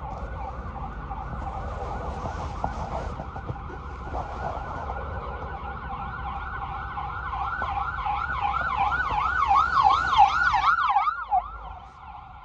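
Emergency vehicle siren coming up from behind, heard from inside a moving car over its low road rumble. The siren wails in quick rise-and-fall sweeps, about three a second, grows louder, and cuts off about a second before the end.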